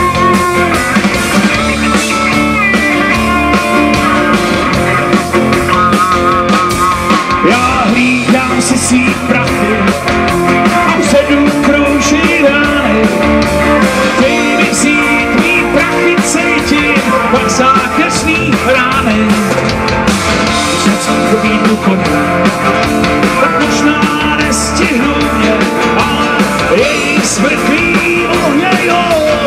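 Live rock band playing loud: electric guitar, Roland accordion and drum kit with a steady beat.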